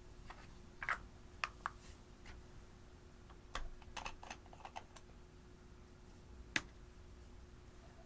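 Slime being handled by hand, giving off irregular small sticky clicks and pops, with the sharpest pop about six and a half seconds in.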